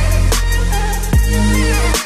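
Background electronic music with a heavy bass line and a steady drum beat.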